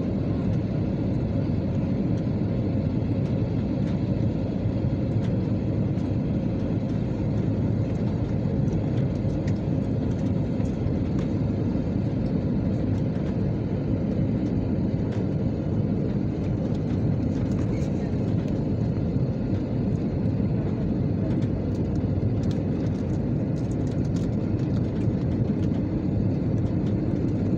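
Steady cabin noise of a jet airliner on final approach: a constant low rumble of engines and airflow, with a faint steady hum.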